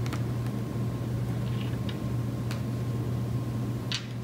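Steady low hum, with a few faint light clicks from handling a skincare jar and its contents.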